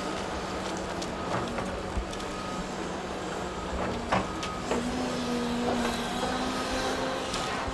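Cat 330 excavator's diesel engine running steadily, with a few sharp clanks from the machine; the engine note steps up slightly about five seconds in.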